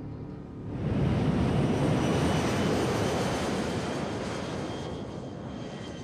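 Jet airliner taking off, a loud engine roar that swells about a second in and then slowly fades as the plane climbs away.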